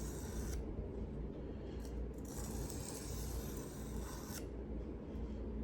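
A knife blade (Massdrop Buc) being hand-sharpened on a sharpening stone, in slow, even strokes at a held angle. Each stroke is a rasping hiss: one ends about half a second in, and a second runs for about two seconds through the middle, with pauses between strokes.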